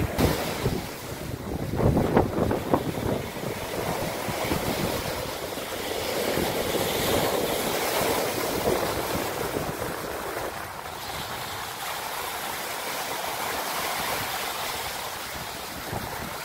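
Lake Superior waves breaking and washing up over a pebble beach, with wind on the microphone.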